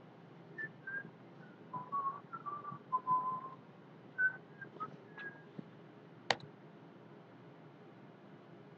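A person whistling a short, wandering run of brief notes at shifting pitches. The notes stop about five seconds in, and a single sharp click follows about a second later.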